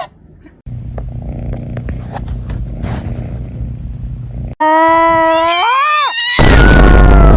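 A cat purring steadily, then a long drawn-out meow that rises and falls in pitch, then a loud, harsh yowl near the end.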